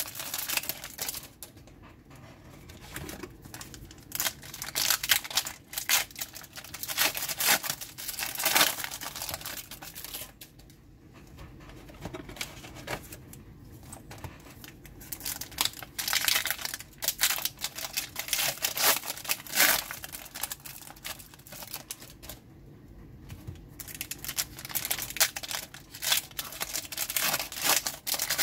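Foil trading-card pack wrappers being torn open and crinkled by hand, in repeated bursts of crackling with short lulls between packs.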